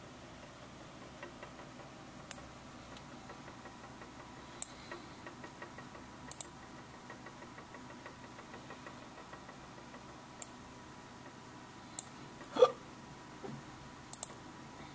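Computer mouse button clicking, single clicks and quick double clicks a few seconds apart, with faint rapid ticking of the scroll wheel in between. Near the end comes one louder, short sound with a pitch to it.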